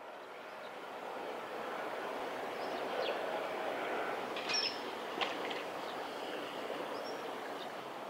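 Steady outdoor background noise over a river, with a few short, high bird calls a few seconds in and again later.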